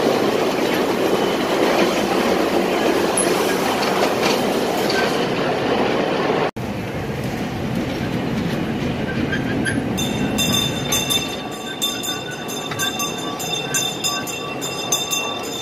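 Miniature amusement-park train running along its track, a steady rumble of the small open cars. From about ten seconds in, the wheels click quickly and regularly over the rail joints. The sound cuts out for an instant about six and a half seconds in.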